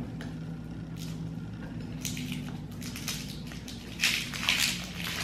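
Plastic candy wrapper crinkling as it is pulled open, in a few short rustles about two seconds in and again around four seconds, over a faint steady hum.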